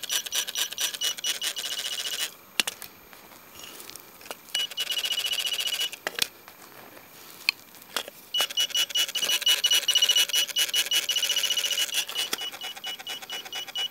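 Garrett metal detector sounding a high, rapidly pulsing tone over a dug hole in stony soil, signalling metal. The tone comes in several stretches of one to four seconds with pauses between, and a few sharp knocks fall in the pauses.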